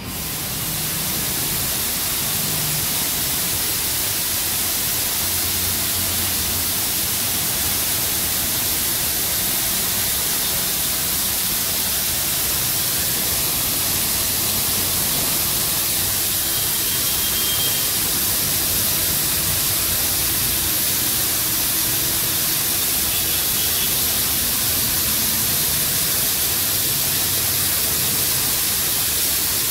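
Water jets of an automatic gantry car wash spraying over a car: a loud, steady hiss that comes up in the first second and then holds.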